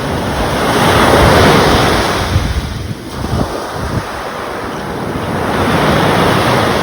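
Ocean waves breaking, the surf swelling and easing twice, about five seconds apart, with wind buffeting the microphone.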